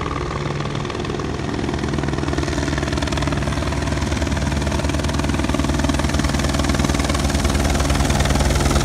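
Helicopter flying in low toward the listener: a fast, steady rotor beat over the engine, slowly growing louder as it nears.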